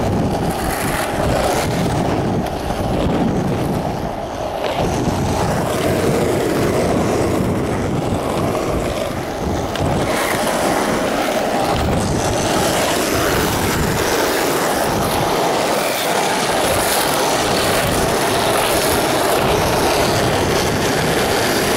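Skateboard wheels rolling steadily over asphalt, with wind rushing over the camera microphone; the hiss grows brighter about halfway through.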